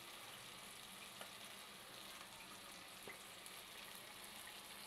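Faint, steady sizzle of a tomato-and-spice masala frying in a pan over a high gas flame, with a couple of soft taps as crumbled boiled potato drops in.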